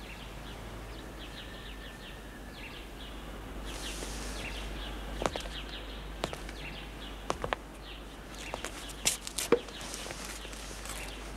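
Small birds chirping over a steady background hiss. A few sharp knocks and clicks in the second half, the loudest near the end.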